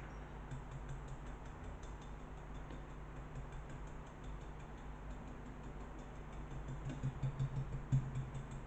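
Soft rubbing of a paintbrush dabbing and blending paint on a pitcher's surface over a steady low hum, with a few soft low thumps near the end.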